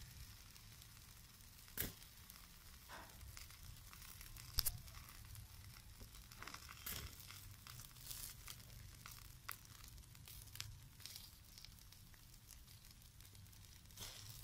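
Faint sizzling of skewered chicken wings grilling over glowing charcoal, with scattered crackles and pops; the sharpest pops come about two and five seconds in.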